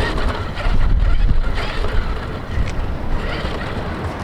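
Wind buffeting the microphone: an uneven low rumble that swells loudest about a second in.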